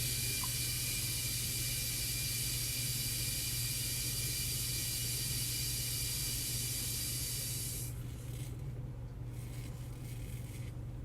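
Water running from a bathroom faucet into the sink, a steady hiss that stops about eight seconds in.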